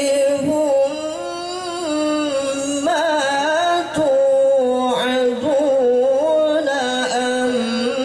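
A male qari reciting the Qur'an in the melodic tilawah style: one voice singing long, held notes with rapid ornamental turns, its pitch drifting slowly lower.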